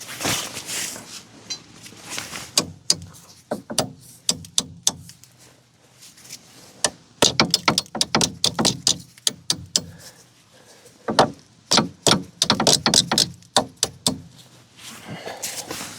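Hand tools on a rusted suspension bolt: irregular runs of metal clicks and clinks as a bolt stuck in the socket is threaded back in and worked loose.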